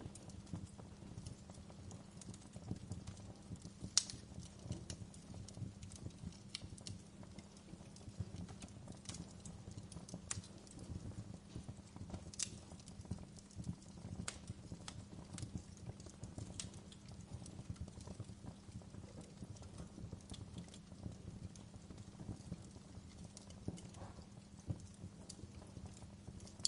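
Wood fire crackling in a fireplace: irregular sharp pops and snaps over a steady low rumble of burning, with the loudest pops about four and twelve seconds in.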